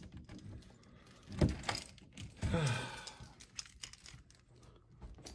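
Keys jangling and clothes and bag rustling, with two brief low vocal sounds: a short grunt about a second and a half in and a falling sigh about a second later.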